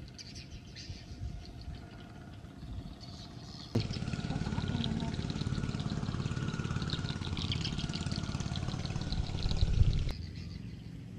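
Baitcasting reel being cranked to retrieve a lure: a steady, fast whirring from the reel that starts suddenly a little over a third of the way in and stops shortly before the end, after a quieter opening.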